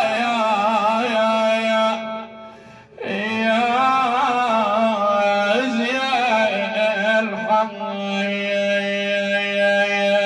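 A man chanting a drawn-out mourning lament in long held notes that waver and bend in ornaments, with a pause for breath about two seconds in.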